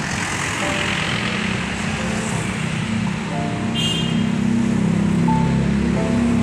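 Street traffic driving past: car and motorbike engines and tyre noise, with a songthaew pickup passing close in the first second or so. A brief high squeak sounds about four seconds in.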